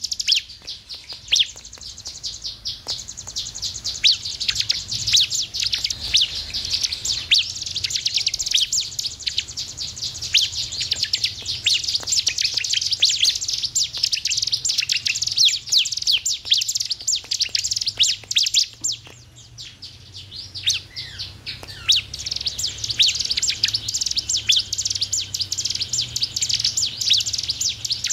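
Bar-winged prinia (ciblek) singing: a rapid, continuous stream of high, sharp chirps that eases off briefly about twenty seconds in, then resumes.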